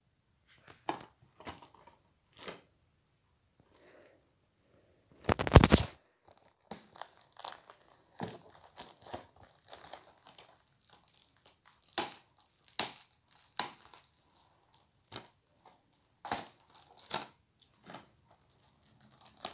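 Plastic shrink-wrap on a DVD case being crinkled and torn off by hand: irregular sharp crackles, sparse at first, then dense and continuous, with one louder burst of noise about five and a half seconds in.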